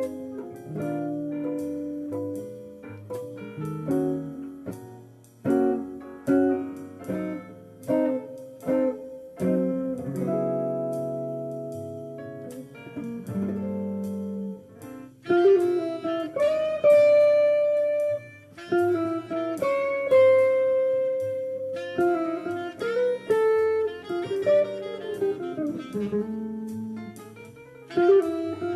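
Instrumental jazz: chords struck and left to ring for the first half, then from about halfway a brighter single-note melody line played over chords.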